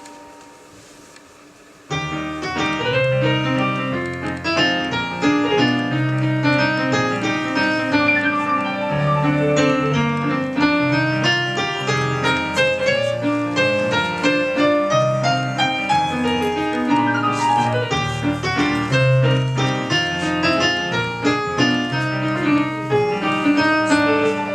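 Piano music with quick, densely packed notes and a steady bass, coming in about two seconds in after a brief lull.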